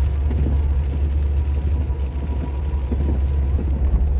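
Car being driven, a steady low rumble of engine and road noise.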